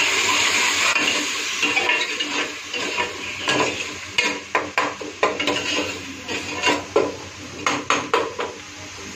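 Water poured into frying masala in a metal pressure cooker sizzles at first. Then a metal ladle stirs the pot, clinking sharply against the cooker's side over and over.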